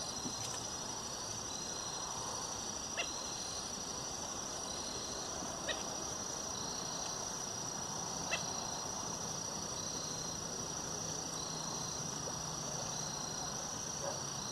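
Insects trilling steadily and high-pitched on a lakeshore, with a second caller chirping in short repeated pulses about once a second. Three faint clicks come a few seconds apart.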